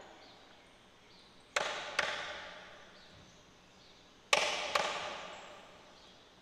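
Two pairs of sharp percussive strikes, the two hits in each pair less than half a second apart and the pairs about three seconds apart, each hit ringing out in a long reverberant decay. The tail of a song fades out just before the first pair.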